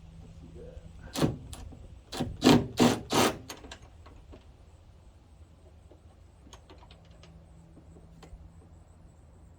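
A hand wrench tightening the bolt of a tailgate's top cable mount: a quick run of about seven loud strokes from about one second in, then a few faint clicks later on.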